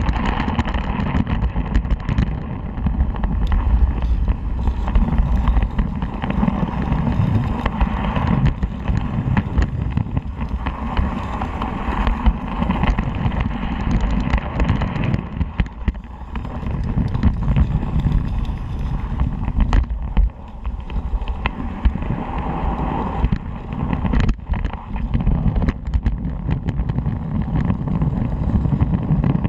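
Miniature steam railway train running along its track: a steady rumble and clatter of wheels on rails, with wind buffeting the microphone.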